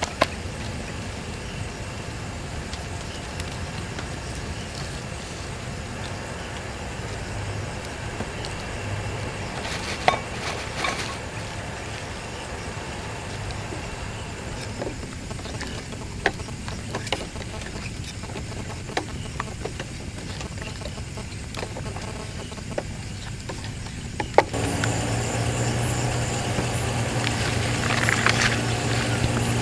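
Portable gas stove burner running steadily under a pot, while a wooden spatula knocks and scrapes against the metal pot as it stirs. About 24 seconds in the sound steps up louder, with a stronger low hum.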